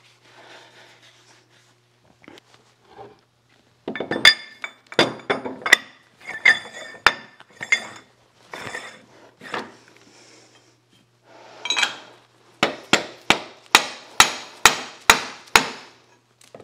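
Heavy lathe chuck being mounted on a Hendey lathe's L-type long-taper spindle nose: a few scattered metal clanks and clinks, then a quick run of about eight sharp, ringing metal-on-metal strikes near the end.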